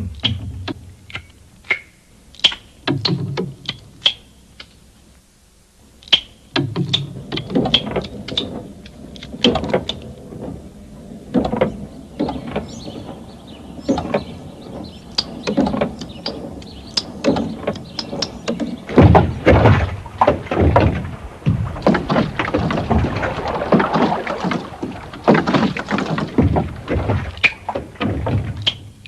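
A clattering series of knocks, clicks and thuds: a few sharp clicks at first, a short lull, then a dense, irregular run of overlapping hits from about six seconds in, loudest a little past the middle.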